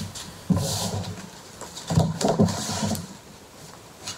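A low human voice murmuring twice, the second time longer, with light clicks from playing cards being handled.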